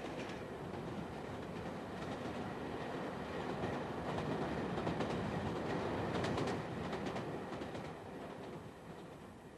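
British Rail diesel multiple unit passing, a rumble of wheels on track that builds to its loudest about six seconds in. A short run of clicks at the peak, then it fades away.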